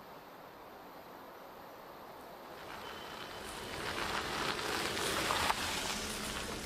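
Faint outdoor wind at first, then a car approaching along a road, its engine and tyre noise growing from about two and a half seconds in to its loudest near five seconds as it passes close.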